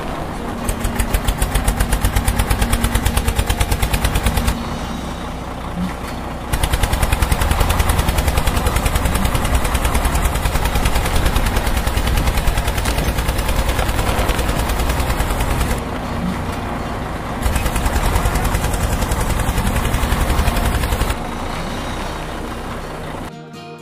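Tractor engine chugging with a rapid, even beat, dropping to a quieter, smoother stretch twice before picking up again.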